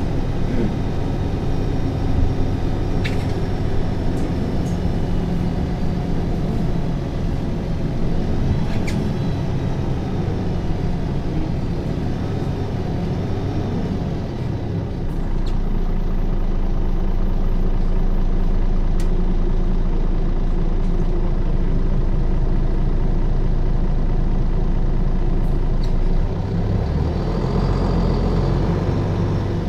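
MAN NL 283 Lion's City city bus's diesel engine running as the bus drives, a steady drone with a few light clicks. From about halfway through the engine note becomes deeper and louder for some ten seconds, then eases near the end.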